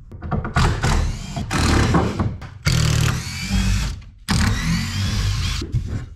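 Cordless impact driver backing screws out of a wooden batten, in four runs of about a second each, its motor whine rising as it hammers.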